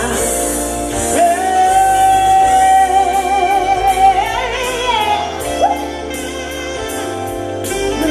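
A female singer with a live band holds one long wavering note, then bends it up and down in a short wordless run.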